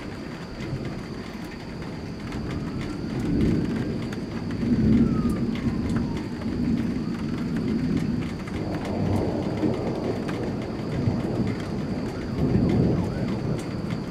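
Rolling thunder rumbling in several low swells, about three seconds in, around nine seconds and again near the end, over steady rain falling with scattered drips.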